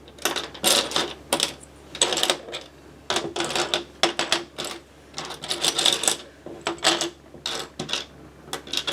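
Small plastic Lego bricks clicking and clattering against each other as they are rummaged through by hand, in irregular clusters of sharp clicks.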